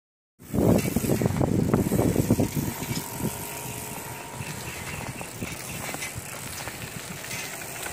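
Wind buffeting the microphone and road noise of riding along an asphalt road. It is loudest and most gusty in the first two seconds or so, then settles into a steadier, quieter rush.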